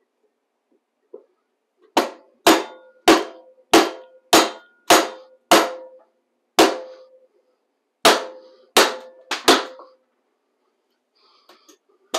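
Hammer blows on a wooden block used as a drift, driving the old cutterhead out of a DeWalt 735 thickness planer. About eleven sharp strikes, roughly two a second with a short pause after the seventh, each followed by a brief metallic ring.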